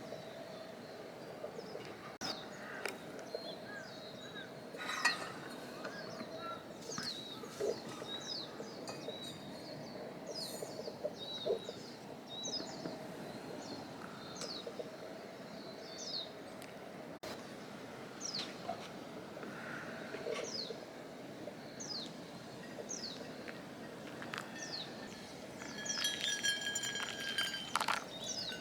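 A bird calling over and over, short high notes that slide downward, about one every second or so. Near the end come a few light ringing metallic clinks.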